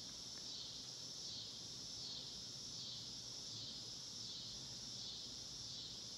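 Steady chorus of insects, high and shrill, pulsing evenly a little faster than once a second.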